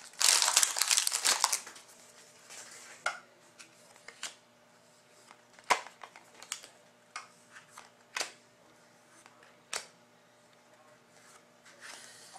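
Trading-card pack wrapper crinkling as it is pulled open for about the first second and a half. Then scattered soft clicks and snaps of hockey cards being handled and flipped through one at a time.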